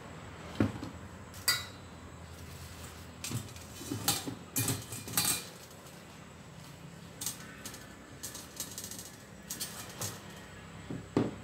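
Dishes and utensils being handled, a dozen or so scattered clinks and knocks that are densest about four to five seconds in, over a low steady hum.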